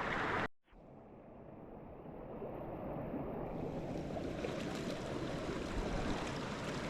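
Steady rushing of a creek waterfall. The sound cuts off abruptly about half a second in, then comes back faint and grows steadily louder.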